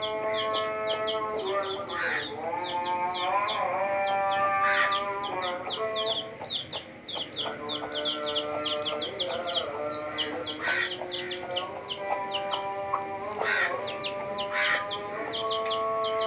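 Baby chicks peeping rapidly and continuously, thin high cheeps several a second, over background music of long held notes that change pitch in steps.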